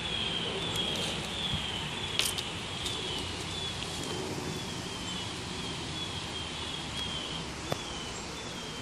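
A small creature's short, high chirp, falling slightly in pitch and repeated about every half second, over a steady outdoor hiss. A sharp click comes about two seconds in, and a smaller one near the end.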